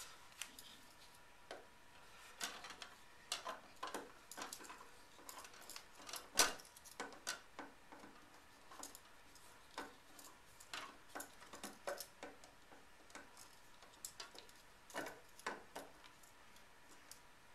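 Swiss Army knife screwdriver working the screw of a plastic outlet cover plate: irregular small clicks and scrapes of metal on the screw and plate, the sharpest about six seconds in.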